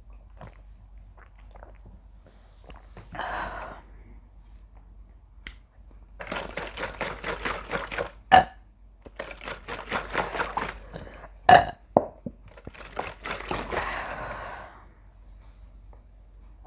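A woman burping several times after chugging pomegranate juice. The burps vary in length, and two short, sharp ones are the loudest.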